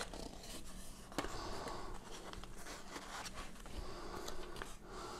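Faint handling of a cardboard gift box: card sliding and scraping as the lid is opened and a paper insert is lifted out, with a few light clicks.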